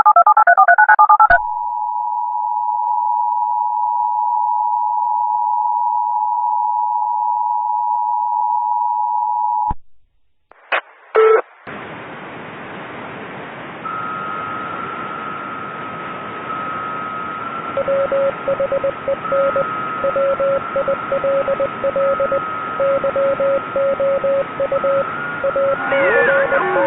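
Electronic signalling tones. It opens with a quick run of telephone touch-tones. Then a steady alert tone holds for about eight seconds and cuts off, followed by a few short beeps, and after that a hiss carrying a steady higher tone and a lower tone that beeps on and off.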